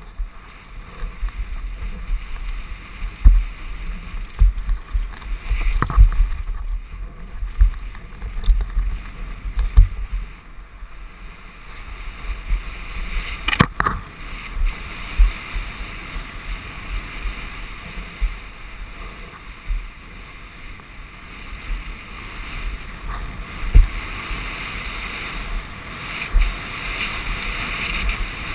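Wind rushing over a helmet-mounted camera as a mountain bike rolls fast down a dirt and stony trail, with tyre noise on the loose ground and frequent irregular low thuds from the bike jolting over bumps. A sharp knock comes about 14 seconds in.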